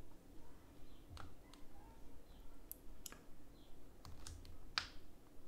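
A scattering of light clicks and taps, about eight or nine of them, the loudest near the end: a Nintendo Switch console being handled and repositioned under a microscope.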